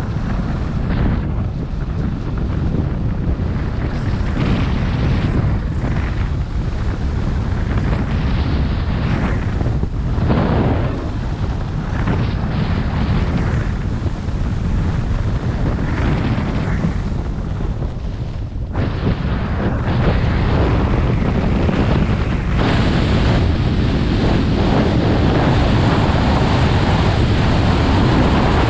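Wind buffeting the microphone on a fast downhill ski run, with the hiss and scrape of skis on groomed snow swelling and dipping through the turns. It grows steadier and hissier near the end as the speed climbs past 55 km/h.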